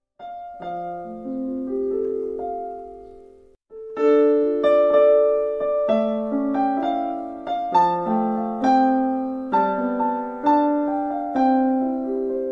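Background piano music: single notes that ring and fade, breaking off briefly about three and a half seconds in and then returning fuller and louder.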